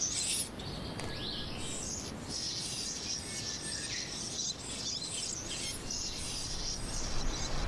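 Bonin white-eye nestlings begging: rapid, high-pitched chirping repeated many times a second, with one short gliding note about a second in. A low rumble rises near the end.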